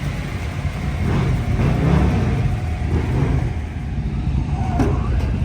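A vehicle engine running at low speed as it moves a trailer into place, swelling slightly a second or two in.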